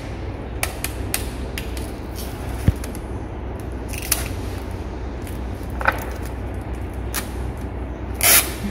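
Clear sticky tape pulled off and torn on a desk dispenser, and a clear plastic sheet being taped to a door frame: short, scratchy rips at irregular spacing, about eight of them, the loudest near the end, over a steady low hum.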